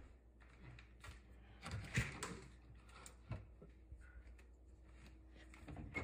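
Faint room noise with a few soft knocks and clicks, the loudest about two seconds in and a short cluster near the end.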